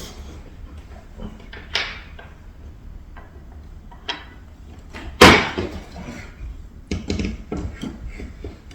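Wooden chair parts and bolt hardware knocking and clattering as they are handled and fitted together during assembly, with a few separate knocks, one loud knock about five seconds in, and a quick run of smaller ones near the end.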